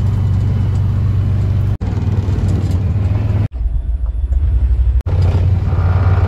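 Engine of a side-by-side utility vehicle running steadily as it drives, a low hum heard from the seat. The sound breaks off and resumes abruptly twice at cuts between clips, and is lower in pitch for a stretch past the middle.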